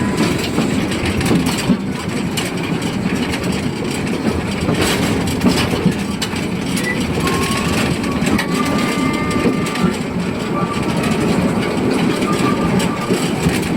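Narrow-gauge forest-railway train heard from aboard its passenger car: a steady rumble with rattling and clatter of the wheels over the track. A faint high squeal joins in about seven seconds in and fades a few seconds later.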